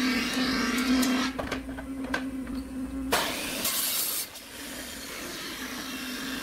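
Electric power tool motor running in a woodworking shop with a steady hum and a few light knocks of wood being handled. About three seconds in, a sudden burst of louder hiss lasts about a second, like a saw cutting wood, before the motor noise settles lower.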